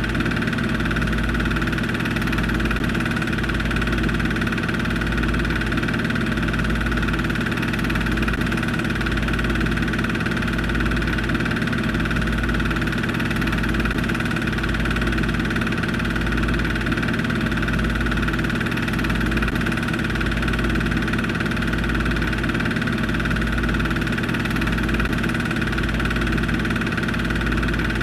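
Steady mechanical whir and hum of a running film projector, with a slow, regular low throb, unchanging throughout.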